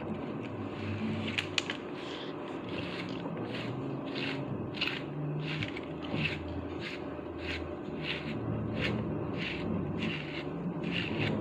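Grooming brush raking through a Chow Chow's thick double coat in repeated strokes, about two a second, each a short dry scrape.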